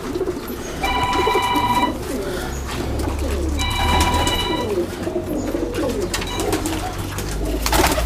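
A loft full of Pakistani high-flying pigeons cooing together, many overlapping coos. Twice a steady high tone sounds for about a second, and near the end there is a short burst of wing flapping as a pigeon takes off.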